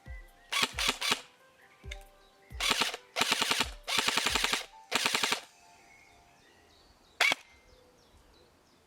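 VFC HK416 A5 airsoft electric gun firing several bursts of rapid full-auto shots, some short and some about a second long, then a single shot near the end.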